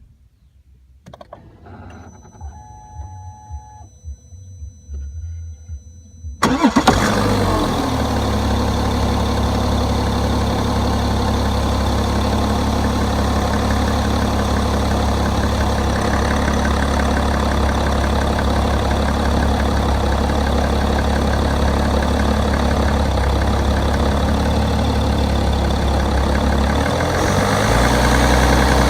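BMW 530d F10's six-cylinder turbo diesel, heard from inside the engine bay: after a few seconds of faint electronic whine and clicks, it cranks and fires with a loud burst about six seconds in, then settles into a steady idle. Near the end the idle note shifts and grows slightly louder.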